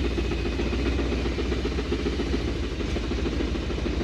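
1980 Dodge truck's 360 V8 running while the truck drives, with a rapid, steady knocking. The knock is from a worn connecting-rod bearing (rod knock).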